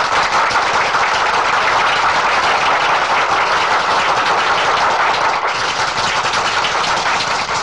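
Audience applauding: many people clapping in a dense, steady patter at an even level.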